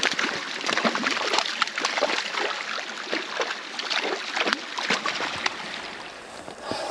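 A hooked westslope cutthroat trout splashing and thrashing at the pond surface: a dense run of irregular splashes that thins out after about five seconds.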